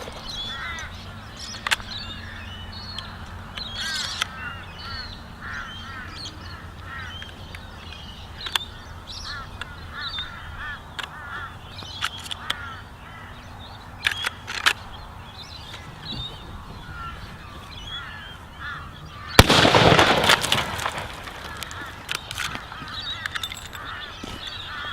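.45-70 rifle shot about three-quarters of the way through, a sudden loud crack followed by about a second and a half of noise as the bullet smashes the ice block. Birds call and chirp throughout.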